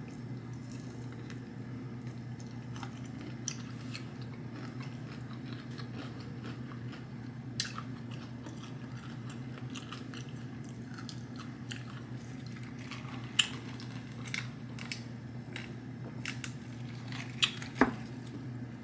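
Close-up chewing of fried chicken, with scattered short wet mouth clicks and smacks, over a steady low hum.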